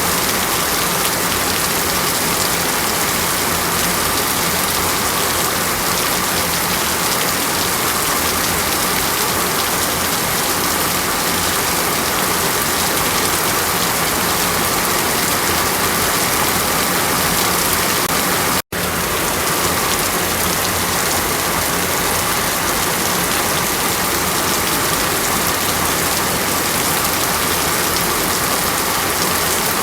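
Steady, dense rush of falling water, rain-like, with no change in level. It cuts out for an instant about two-thirds of the way through.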